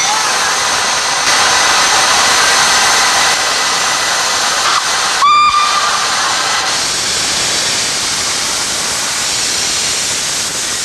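Narrow-gauge 0-4-4-0 steam locomotive No 5 Hamra hissing steam steadily, louder from about a second in, with one short whistle blast about five seconds in.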